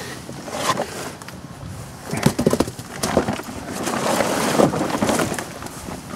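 Wet plastic tarp rustling and crinkling in irregular bursts as it is pulled back off stacked firewood, with a short low-pitched sound a little over two seconds in.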